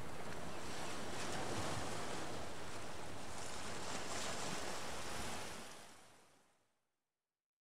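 Ocean surf washing onto a beach, a steady rushing noise that fades out about two-thirds of the way through, leaving silence.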